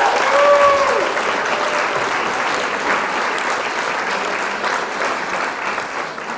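Crowd applause, loud and steady, with a few short pitched calls in the first second, fading out near the end.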